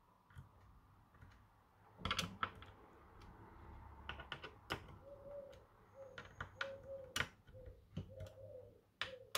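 Small screwdriver turning and seating the screws that hold a water block to a graphics card: scattered light clicks and taps. From about halfway, a bird coos again and again.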